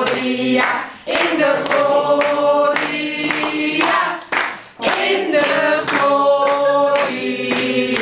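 A small group of family members singing a birthday song together, with hands clapping along.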